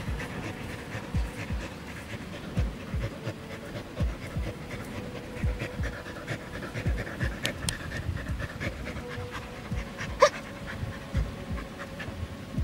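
Samoyed dog panting, in uneven breaths, with one short sharp squeak about ten seconds in.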